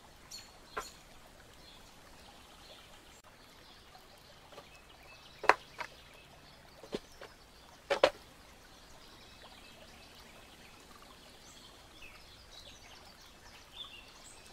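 Laser-cut MDF pieces of a miniature kitchen model clicking and knocking as they are handled and pressed together: a few sharp, separate wooden clicks, the loudest about five and a half and eight seconds in, over a faint steady background.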